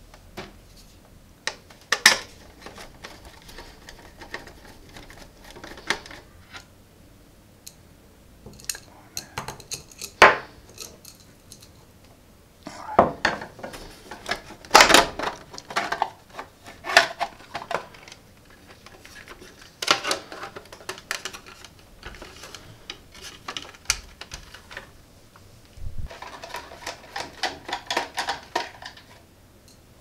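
Plastic casing of a small mini dehumidifier being pried apart and handled: scattered sharp clicks, knocks and short bursts of rattling as the shell halves come apart and the inner parts are moved.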